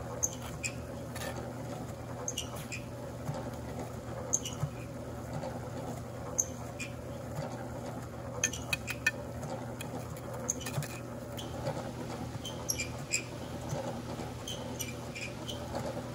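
Trowel scraping and tapping wet mortar onto fieldstones, with short scattered clinks and scrapes as the stones are set in place.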